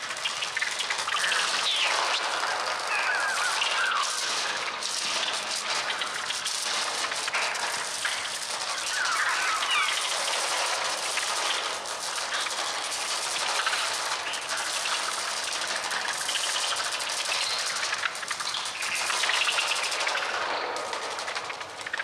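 A dense mass of screeching, squawking bird cries over a rapid fluttering rattle of wings, produced electronically on the Mixtur-Trautonium rather than by real birds.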